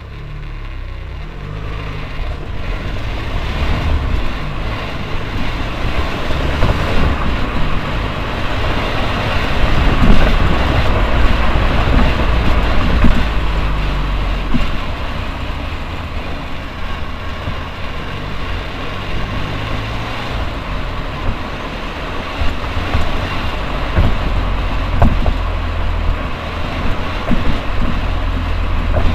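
Ford Mondeo Mk4 running with a steady low rumble and a noise from the rear brakes, swelling and easing twice, with a few sharp knocks.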